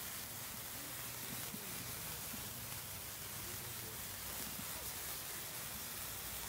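Handheld sparkler burning with a steady fizzing hiss and fine crackle.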